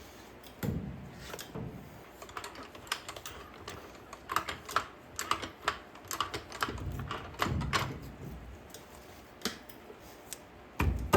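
Irregular light clicks and clinks of metal axle parts being handled and fitted, with a few dull thumps, while a packed bearing and the wedge housing are set onto the Coleman axle.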